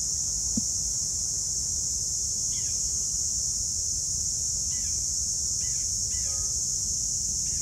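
Steady high-pitched drone of insects, with a few short falling bird chirps in the second half.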